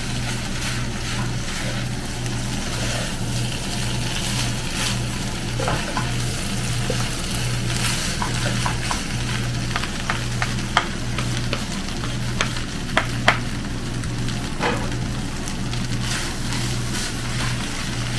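Yakisoba noodles and vegetables sizzling in a nonstick wok as they are stir-fried and tossed with two wooden spoons, over a steady low hum. Several sharp knocks of the wooden spoons against the pan a little past the middle are the loudest sounds.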